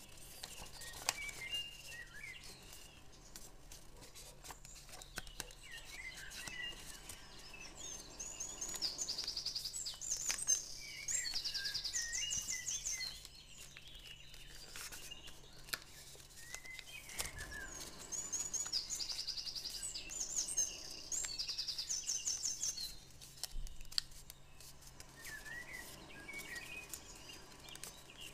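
Songbird singing: repeated high chirps and fast, evenly pulsed trills coming in bouts every few seconds, with lower warbling notes between them. Beneath it, soft crackles and clicks of paper being handled and creased.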